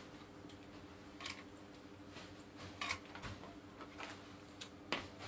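Scattered light clicks and rustles of clothes hangers and polo-shirt fabric being handled on a metal hanging rail, over a faint steady hum.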